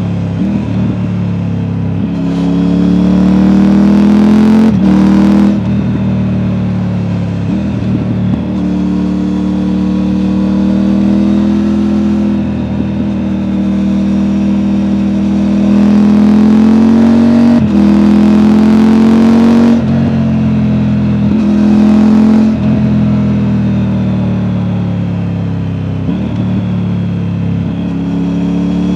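Triumph Tiger 900's three-cylinder engine through an Akrapovic exhaust, heard on board while riding: it pulls up through the revs and drops back at each gearchange, several times over. The exhaust note is deep and a little burbly.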